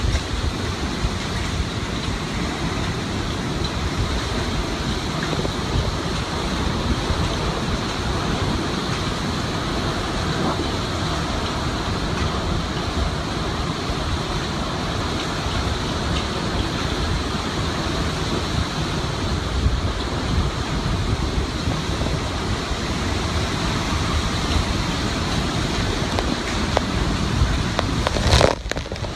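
Hurricane-force wind and driving rain rushing steadily, with heavy wind buffeting on the microphone. A brief sharp crackle near the end.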